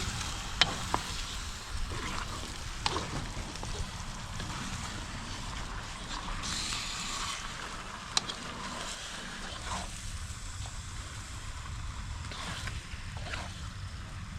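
Wind buffeting the microphone over a steady hiss, with a few sharp clicks and knocks scattered through.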